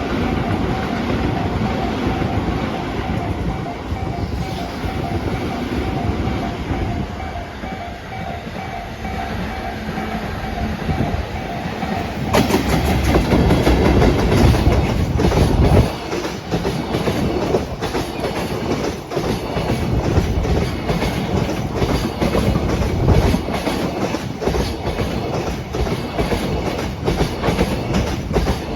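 Level crossing warning bell ringing in a steady repeating ding. About twelve seconds in, a JR Freight EF210-100 electric locomotive arrives with a sudden loud rush and passes, followed by its train of Koki container flatcars clattering over the rail joints in a steady clickety-clack.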